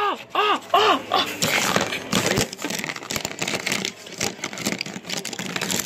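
A child's voice makes four short rising-and-falling calls in the first second. After that come dense plastic clicks and rustling as LEGO minifigures are handled on paper close to the microphone.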